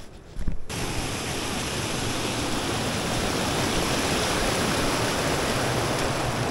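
Steady rush of fast-flowing water, starting abruptly a little under a second in.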